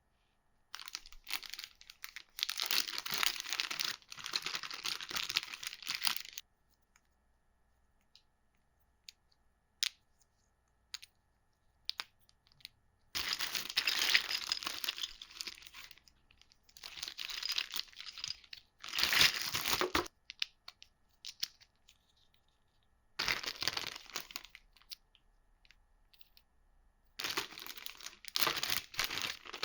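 Board-game packaging being unwrapped: crinkling and tearing in five spells of a few seconds each, with small clicks and taps in the gaps between.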